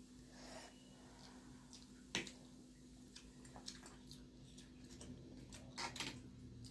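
Quiet eating of steamed paneer momos with forks: a few sharp clicks of forks on plates, the loudest about two seconds in and two more close together near the end, with faint wet chewing sounds between.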